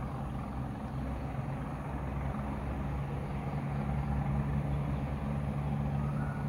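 An engine running steadily with a low hum, growing a little louder about halfway through.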